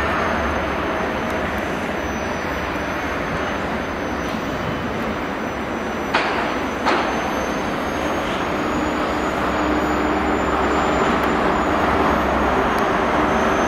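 GWR High Speed Train with class 43 diesel power cars moving through the station: a steady diesel drone and rumble. Two sharp clicks come about six and seven seconds in, and a low engine note grows stronger in the second half as the rear power car draws near.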